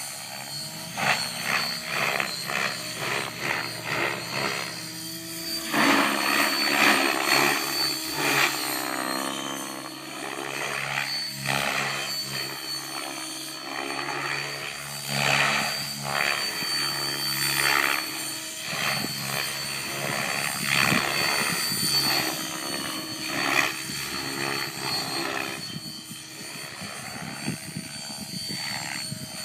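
Outrage Fusion 50 RC helicopter flying 3D aerobatics: the rotor blades and drivetrain whine and whoosh, rising and falling in pitch and loudness as the model loads its blades through each manoeuvre.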